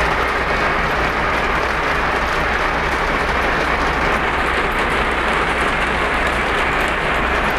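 Lionel O-gauge model train running on Fastrack: a steady rushing rumble of wheels on track, with a low hum underneath.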